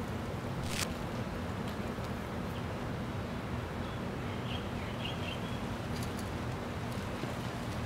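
Outdoor park ambience: a steady low rumble with a single click under a second in and a few faint bird chirps around the middle.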